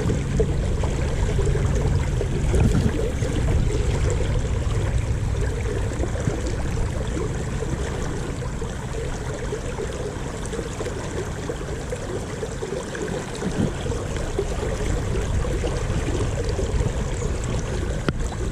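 River current flowing steadily over shallows, a continuous rush and babble of water.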